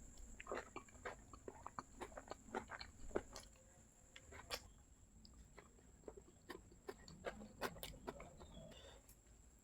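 Faint chewing with many small, irregular mouth clicks and soft crunches.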